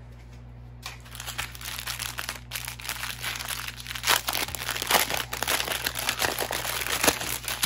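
Clear plastic packaging of diamond-painting drills crinkling as it is handled, starting about a second in.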